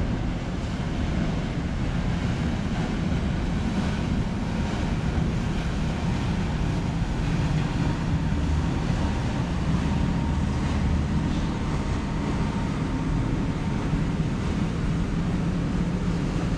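Wind buffeting the microphone over a low, steady rumble of a ship under way, with the wash of the sea beneath it.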